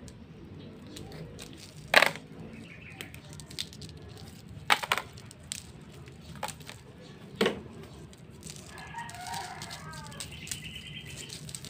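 A few sharp knocks and taps as nylon fishing line is pulled and handled at its spool, the one about two seconds in the loudest. A rooster crows in the background near the end.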